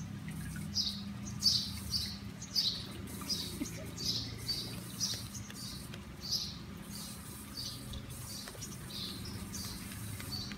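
Hands scrubbing a wet, soapy puppy's belly fur in back-and-forth strokes, a rhythmic squishing rub about twice a second, over a faint steady low hum.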